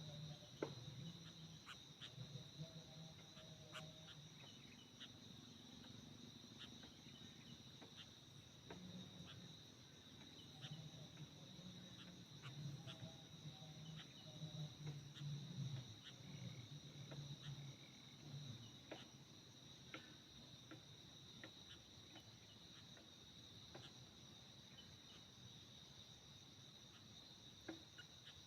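Faint steady insect chirring in two high, unbroken pitches, with scattered small clicks and a soft low rumble coming and going.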